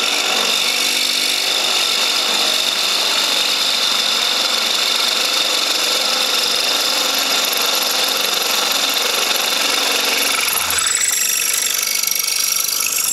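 Central Machinery 8-inch 5-speed bench drill press running, its twist bit drilling into a clamped square metal tube: a steady motor hum with a high, steady whine from the cutting.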